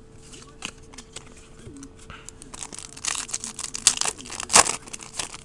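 Trading-card pack wrapper crinkling and tearing, with cards being handled. The crackles are sparse at first and build into a dense run in the second half.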